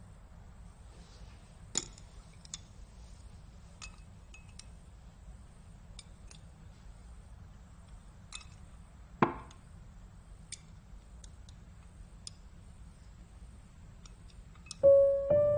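Chopsticks and porcelain bowls and dishes clinking during a meal: scattered light clicks, with a louder knock about nine seconds in. Music begins just before the end.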